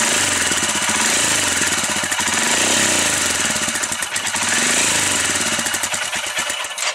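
Exhaust note of a BS6 Royal Enfield Himalayan's 411 cc single-cylinder engine at the silencer, running with a steady beat and revved up and back down a couple of times. The sound cuts off suddenly at the end.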